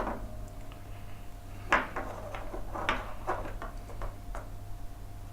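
Light clicks and taps of small acrylic printer-frame parts and a metal square nut being handled and fitted together, about half a dozen irregular ticks with the sharpest one near the two-second mark, over a faint steady hum.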